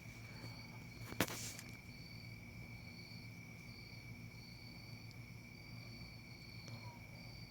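Faint outdoor insect chirping: a steady high trill with a higher chirp that pulses on and off at an even, slow beat. There is one sharp click about a second in.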